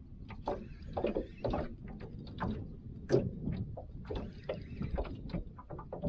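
Small waves slapping and knocking against a small aluminium boat's hull in irregular thumps, over a low rumble of wind on the microphone.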